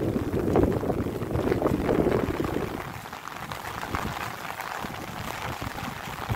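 Light rain falling, a dense steady patter of drops; a fuller, deeper layer beneath it fades away about three seconds in.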